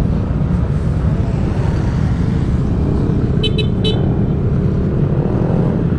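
Steady low rumble of a scooter's engine and wind on the move, from the rider's Yamaha NMAX 155. About three and a half seconds in, a horn gives three short beeps in quick succession.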